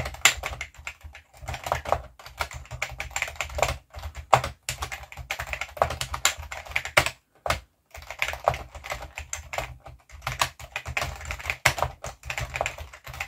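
Typing on a Key Tronic E03600-series keyboard (E03623ELSGF-C) with rubber-dome keys: a fast, uneven run of key clacks, with a short break a little past halfway.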